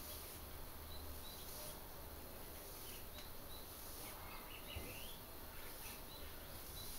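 Faint steady background noise with short, high chirps every second or so, and a quick flurry of chirps about four seconds in.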